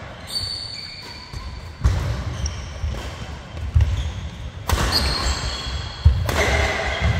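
Badminton doubles rally: sharp racket hits on the shuttlecock, three times, the last a jump smash near the end. Between them, shoes squeak briefly on the court floor and feet land with dull thuds.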